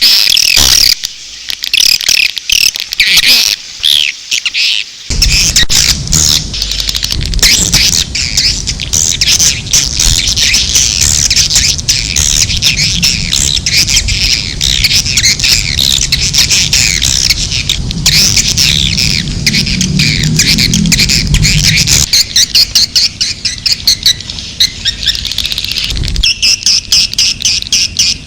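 Recorded swiftlet calls: dense, rapid twittering chirps, a lure sound played to draw swiftlets into a nesting house. From about five seconds in until about twenty-two seconds a low rumble runs beneath the chirps.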